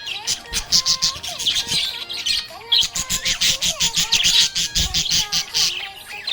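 Budgerigar chattering and warbling: a fast, unbroken run of scratchy chirps mixed with short whistled glides.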